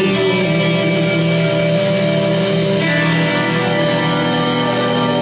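Live rock band on stage, the electric guitars holding a long, ringing chord.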